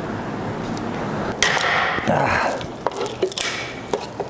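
Handling of car interior parts and tools: a sudden rustling rush about a second and a half in, then several sharp knocks and clicks near the end.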